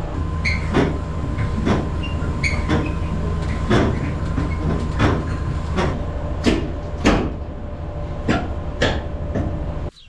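Truck engine running steadily under repeated loud metallic clanks and rattles, roughly one a second, typical of a hitched steel livestock trailer; it all cuts off abruptly near the end.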